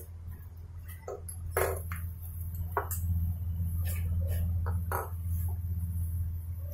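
Scattered sharp clicks and light taps, about eight of them, over a steady low hum.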